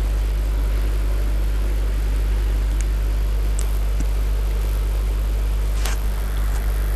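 A steady low hum with a few faint clicks and a short hiss about six seconds in.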